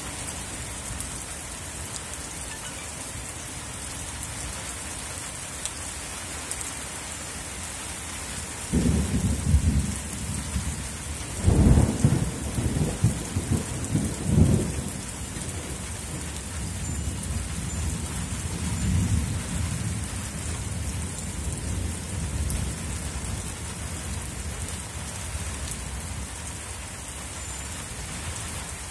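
Steady rain falling, with a long roll of thunder that starts about a third of the way in, peaks with its loudest claps in the middle, then fades to a fainter rumble.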